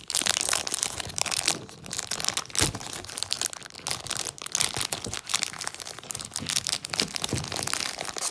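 Clear plastic wrapper crinkling as it is pulled and torn off a GAN 356 XS speed cube: a dense, unbroken run of crackles.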